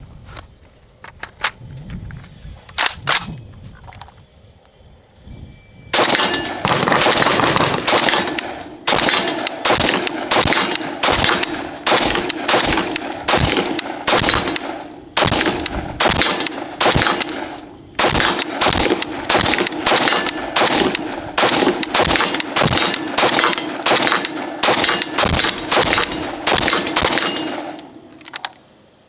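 WBP Jack AK-pattern rifle in 5.56 mm fired in rapid strings of single shots, two or three a second, with a few short pauses. A handful of fainter, spaced-out shots come first, and the firing stops just before the end.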